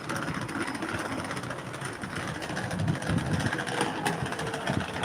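Street traffic noise: passing vehicles with a low rumble that grows stronger about halfway through.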